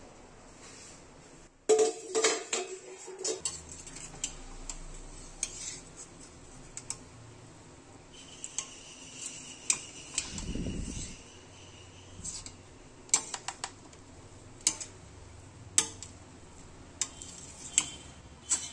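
Metal ladle clinking and scraping against the inside of a stainless-steel pressure cooker pot as cooked rice is stirred and fluffed, in scattered sharp clinks, with a louder clank about two seconds in.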